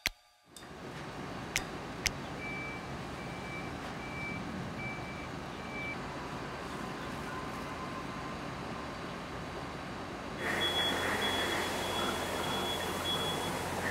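Forklift warning beeper sounding about five short beeps, one a little under every second, over steady yard noise. About ten seconds in the sound changes to a louder machine hum with a steady high whine.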